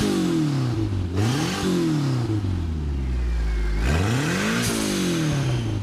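Turbocharged Honda Integra four-cylinder engine revved with an open downpipe, so it is loud: the revs climb and drop back about three times. As each rev falls, the HKS Super Sequential blow-off valve vents with a hiss.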